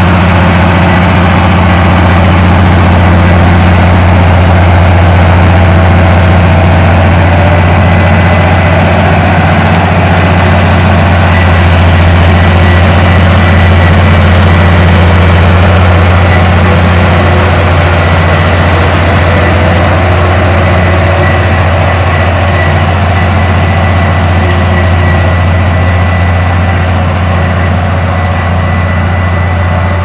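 Komatsu D58P crawler bulldozer's diesel engine running steadily under load as it pushes dirt, a deep even drone with a faint thin high whine over it.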